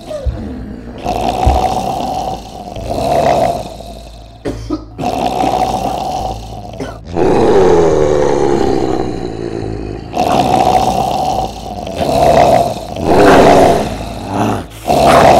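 A zombie's growls and snarls: harsh, guttural vocal sounds in repeated loud spells, with a long snarl falling in pitch about seven seconds in.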